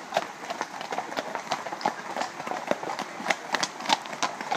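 Hoofbeats of several horses trotting past on a leaf-covered dirt track: irregular, overlapping hoof strikes, several a second.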